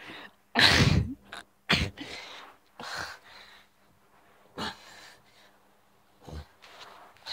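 A person's voice close to the microphone: several short, breathy bursts, the loudest about a second in.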